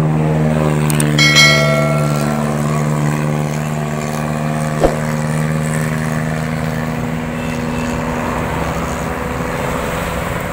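A motor vehicle's engine running with a steady, even hum. About a second in there is a brief high metallic ring, and near five seconds a single sharp knock.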